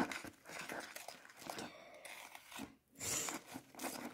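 Magic foam mixed with glitter being stirred with a plastic stick in a plastic bowl: faint, uneven squishing and crackling, with a short lull about two thirds of the way through.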